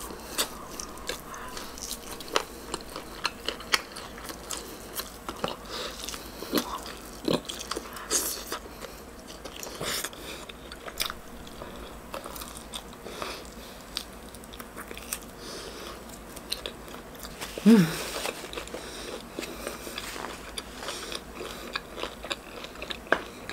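Close-up mouth sounds of gnawing and chewing LA galbi, marinated beef short ribs, off the bone: many small wet clicks and crunches. About eighteen seconds in, a short vocal sound falls in pitch.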